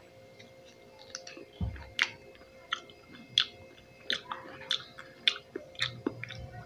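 A person chewing fresh pineapple, with irregular mouth clicks and smacks, a few a second.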